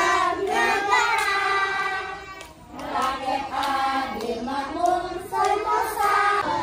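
A group of young children singing together, in phrases with a short break about two and a half seconds in.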